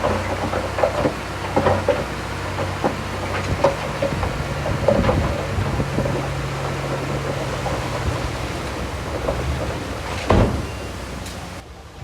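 Diesel engine of a crawler bulldozer running steadily, with repeated metallic clanks and knocks from the machine working and one loud knock about ten seconds in. The sound drops off abruptly just before the end.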